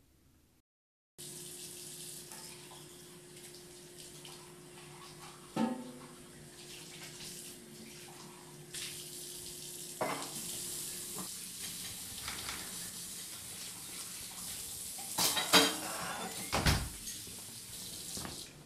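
Kitchen faucet running into a sink while dishes are washed, with a steady hiss of water and several clinks and knocks of dishes against the sink, the loudest about three-quarters of the way through. It starts after about a second of silence.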